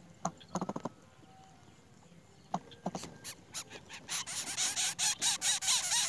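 Greater coucal nestlings begging: a fast run of short, squeaky rasping calls starting about four seconds in and getting louder as the parent's bill reaches them. Before that, a few scattered clicks and rustles in the nest.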